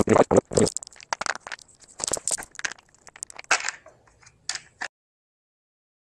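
Scooter fender being fitted back over the wheel by hand: a run of irregular knocks, clicks and scrapes against the frame, cutting off abruptly about five seconds in.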